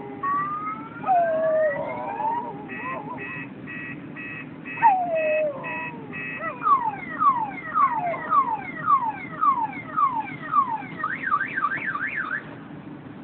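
Car alarm siren cycling through its tones: rising whoops, then a run of steady beeps about two a second, then quick falling sweeps, then a fast warble, cutting off near the end. A dog howls along with long sliding calls a few times in the first half.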